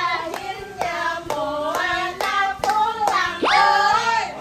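Several women clapping their hands in a steady rhythm, about two claps a second, over sing-song voices; near the end one voice rises in a long drawn-out "oiii" call.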